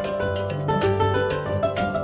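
Background music: a quick run of plucked notes over a steady bass line.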